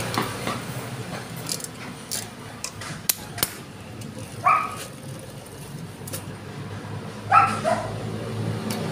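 A dog barks twice, about four and a half seconds in and again near the end. Under it comes light scattered clicking from a motorcycle's rear wheel, chain and sprocket being turned by hand.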